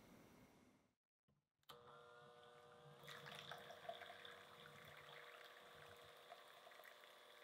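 An electric hand mixer starts up, its motor whine rising as it comes up to speed. The beaters then whisk warmed eggs and sugar in a glass bowl with a light, irregular ticking and spattering, the start of whipping the eggs to a foam for a sponge cake.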